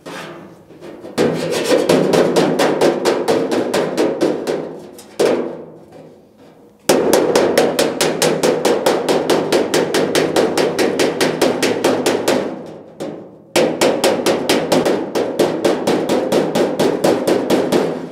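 A steel body dolly being used as a hammer, rapid-fire from inside a 1967 Pontiac GTO door, about eight blows a second in three long runs, crushing the raised, volcano-like edges of old slide-hammer holes in the sheet-metal door skin back flat. It is heard from inside the door shell.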